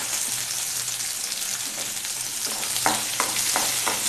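Small onions sizzling in hot oil in a kadai as they begin to fry, with a wooden spatula stirring and knocking against the pan a few times in the second half.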